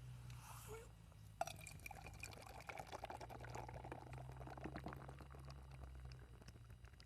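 A drink being poured into a cup: a short click about a second and a half in, then a faint gurgling pour lasting a few seconds.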